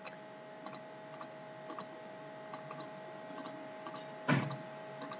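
Computer mouse clicks, many in quick pairs, spaced irregularly over a faint steady electrical hum, as anchor points are placed with the pen tool. A short louder noise comes about four seconds in.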